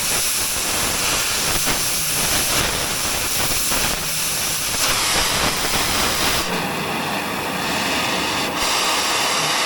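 Gas torch flame hissing steadily as it heats a steel bar for bending. Its sound changes from about six and a half to eight and a half seconds in as the torch is adjusted.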